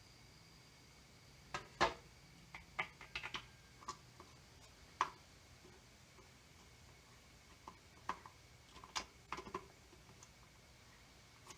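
Irregular light clicks and taps of small hardware and hand tools being handled while a screw is fitted to a motorcycle gas tank mount.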